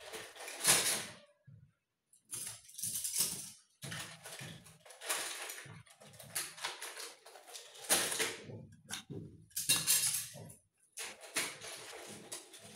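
Irregular handling noises: clicks, rattles and rustles of small items being picked up and moved, coming in a series of short bursts.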